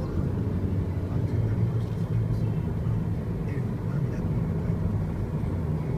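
Steady low rumble of a car cruising on an expressway, heard from inside the cabin: tyre and road noise with the engine running underneath.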